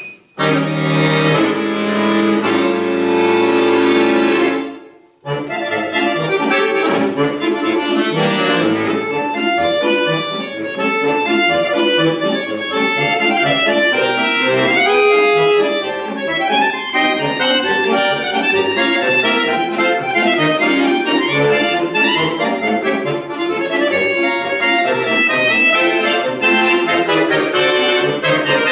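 Solo bayan (chromatic button accordion) playing: a full chord held for about four seconds, a sudden break, then a fast passage of quick treble runs over a steady rhythmic bass.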